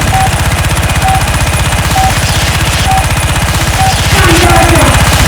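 A rapid, even rattle like automatic gunfire runs throughout, with a short high beep repeating about once a second over it.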